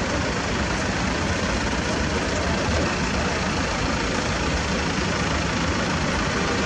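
Diesel truck engines idling steadily, a dense rumble that holds level throughout.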